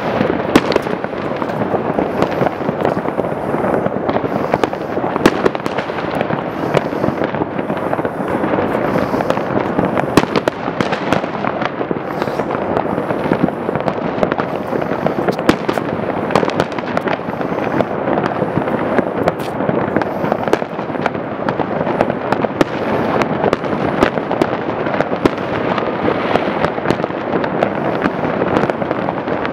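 Many fireworks going off at once: a dense, unbroken crackle of overlapping bangs and pops.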